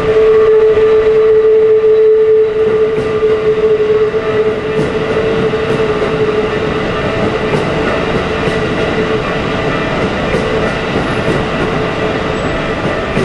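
A Keikyu Airport Line train passing over the level crossing, loud from the start, with a steady tone sounding over the rumble, strongest in the first few seconds.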